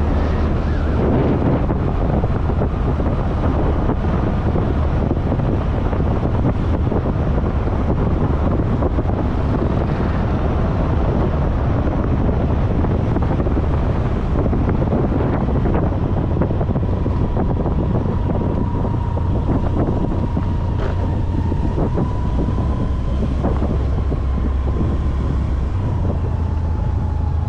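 A road vehicle in motion: a steady low engine and road rumble with wind buffeting the microphone. A thin steady whine comes in about two-thirds of the way through.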